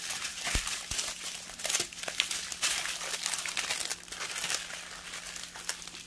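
Small plastic zip-top bags of diamond painting drills crinkling as they are handled and shuffled, an irregular run of crackles.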